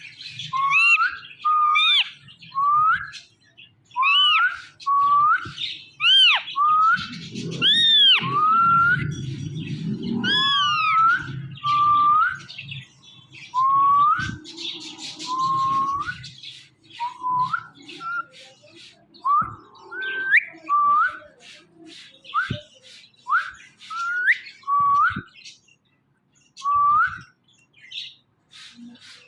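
Indian ringneck parrot calling over and over: short, rising whistled calls, roughly one a second, with a few louder arching squawks about a third of the way through.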